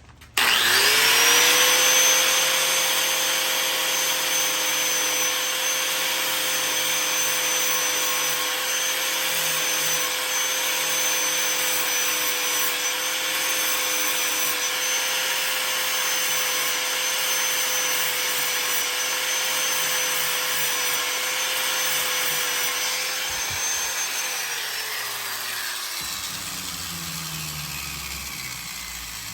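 Handheld electric power tool switched on and run at a steady speed, with a rasping noise of metal being cut away on an exhaust part, then switched off about 24 seconds in and spinning down with a falling whine.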